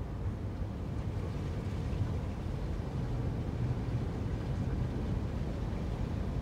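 Steady low rumble of a car driving through shallow tidal floodwater, engine and tyre noise heard from inside the cabin.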